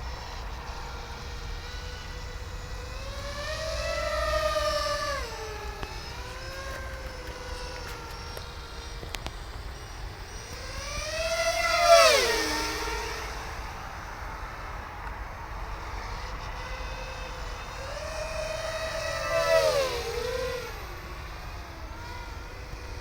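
FPV racing quadcopter flying past three times: each pass a buzzing motor whine that swells and then drops in pitch as it goes by, the loudest about halfway through. A steady low rumble runs underneath.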